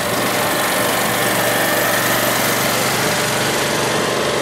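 Steady engine noise: an even rushing hiss over a low hum, swelling slightly about midway.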